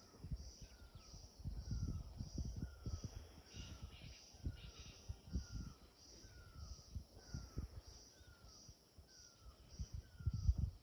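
Outdoor animal calls: a short falling note repeats about every two-thirds of a second over a steady, evenly pulsing high-pitched chorus, with irregular low rumbles and thumps underneath.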